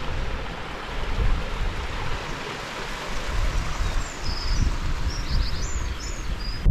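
Mountain stream running over rocks, a steady rushing hiss, with a low rumble underneath. From about four seconds in, a small bird chirps several short, high notes.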